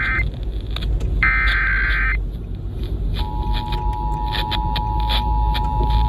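Emergency Alert System broadcast through a small Midland weather radio's speaker: the tail of one SAME header data burst and then a second full, about one-second burst of screeching digital data, then about three seconds in the steady two-tone EAS attention signal begins. This is the opening of an EAS Required Monthly Test.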